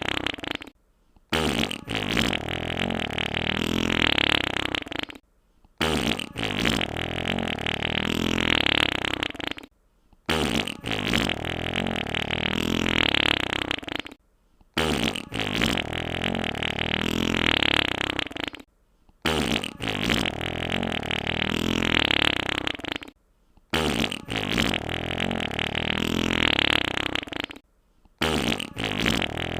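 Wet fart sound effect played on a loop: the same long wet fart repeats about every four and a half seconds, with a short silent gap between repeats.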